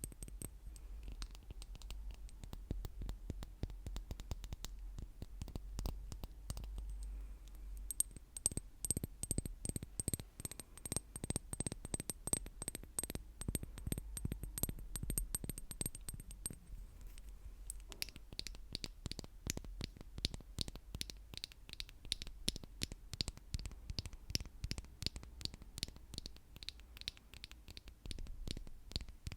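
Rapid ASMR tapping on hard objects, a quick run of clicks. Through the first half or so a faint high ringing tone sounds under the taps. About two-thirds of the way through the ring stops and the taps change to a different, brighter-sounding surface.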